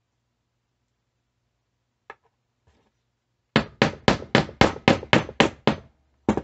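Brass-headed mallet tapping a brass 16-gauge pinfire shotgun case set on a steel sleeve: a small click about two seconds in, then about nine quick, even strikes, roughly four a second, each ringing briefly, and two more near the end.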